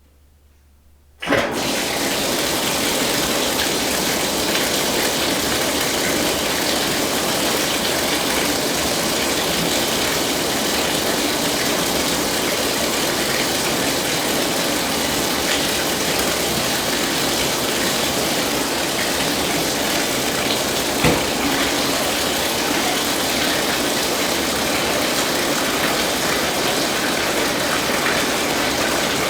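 Tap water running into a bathtub: a steady, even gush that starts suddenly about a second in as the tap is opened, with one brief knock partway through.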